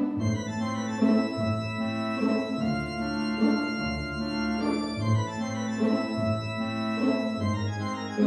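Background music: held chords over changing bass notes, with a soft beat about once a second.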